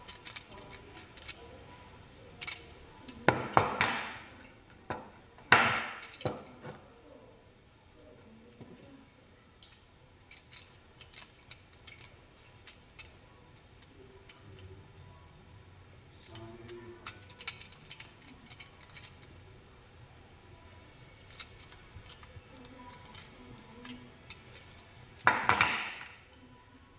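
Stainless steel dual julienne peeler handled in the hand: scattered light metallic clicks and clinks, with a few louder bumps and scrapes against the wooden board.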